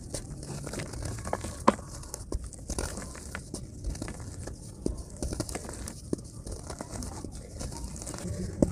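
Dry dirt clumps being crushed and crumbled by hand: a dense, irregular run of gritty crunches and sharp crackles as the lumps break apart and crumbs fall back onto the pile.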